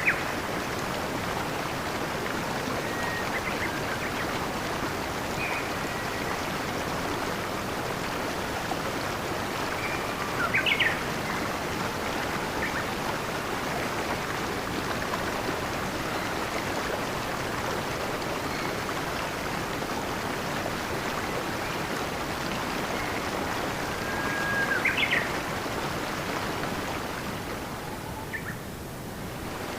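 Steady rushing of flowing stream water, with a few short bird chirps scattered through it, some with quick upward sweeps. The water noise dips briefly near the end.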